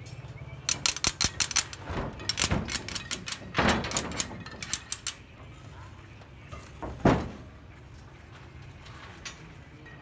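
Steel rebar and tie wire clicking and clinking as a rebar cage is tied by hand: a quick run of sharp clicks for the first few seconds, then a single heavier knock about seven seconds in.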